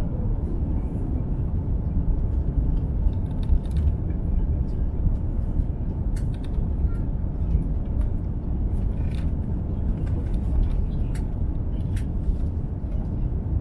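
Steady low roar inside the cabin of an Airbus A350-900 during descent: noise from its Rolls-Royce Trent XWB engines and the air rushing past the fuselage. A tone sliding down in pitch fades out in the first second, and a few faint clicks sound through the roar.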